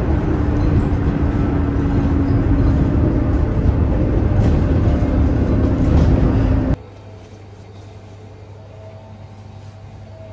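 Inside a moving bus: engine running and road rumble, the engine note slowly falling. It cuts off abruptly about two-thirds of the way through, giving way to quiet indoor room tone with a low hum.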